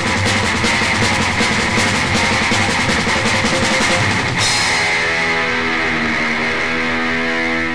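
A three-piece rock band (distorted electric guitar, electric bass, drums) plays fast and heavy, on a demo dubbed from cassette tape. About four and a half seconds in, the drums and cymbals stop and a distorted guitar chord is left ringing out as the song ends.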